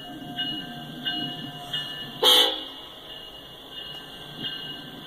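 BNSF SD70ACE diesel locomotive passing at the head of a train, with a low engine rumble, one short horn blast about two seconds in, and a ringing tone that repeats roughly every two-thirds of a second.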